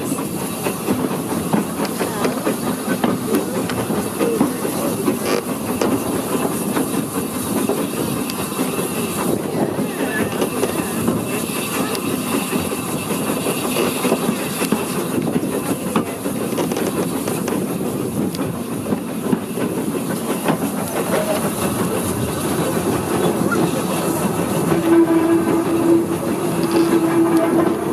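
Steam locomotive No. 2 running along the line, heard from its footplate: a steady clatter of wheels over the rail joints mixed with the hiss of steam. A steady tone comes in near the end.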